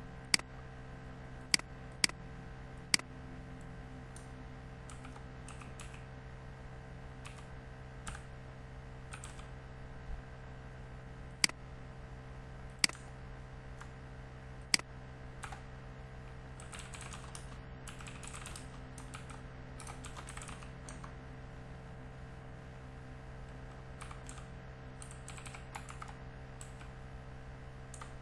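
Typing on a computer keyboard in two quick runs of keystrokes in the second half, with a few sharp, separate mouse clicks earlier, over a steady low hum.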